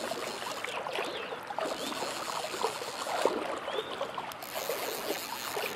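Shallow river water trickling and splashing close by, with a run of small sloshing sounds.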